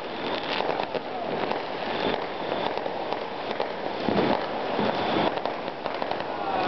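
Fireworks and firecrackers going off in many places at once: a continuous crackle of many overlapping pops and bangs.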